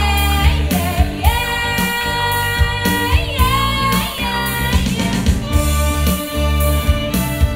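A woman singing, with a violin melody over a steady bass and drum beat.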